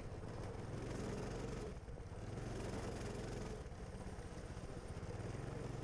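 Coleman 200 mini bike's 196cc single-cylinder four-stroke engine running steadily as the bike rides along.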